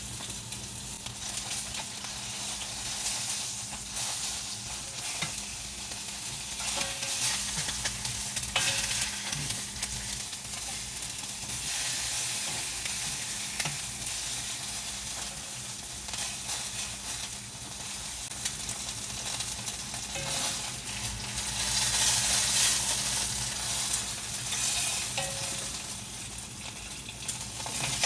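Chicken leg quarters sizzling in hot olive oil in a skillet as they sear, the sizzle swelling louder several times as the pieces are moved with tongs.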